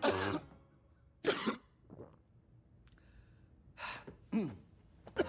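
A person coughing, a string of about five short separate coughs with pauses between, some of them voiced, one with a falling pitch.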